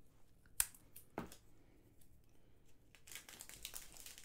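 Washi tape pulled and torn from the roll, two short sharp sounds about half a second apart. Near the end comes a soft plastic bag crinkling as the tape is pressed over a hole in the bag.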